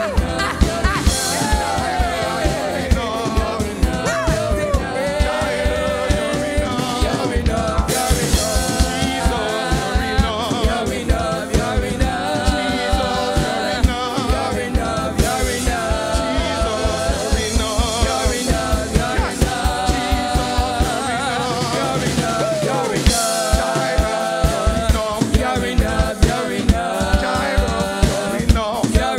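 Live gospel worship singing: singers at microphones singing over backing instruments with a steady beat. About two-thirds of the way through, the bass drops out for a second or so, then comes back in.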